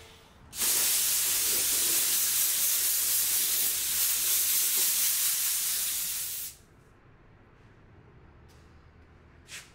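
Compressed air blowing from an air hose nozzle, a loud steady hiss that starts about half a second in and cuts off suddenly some six seconds later.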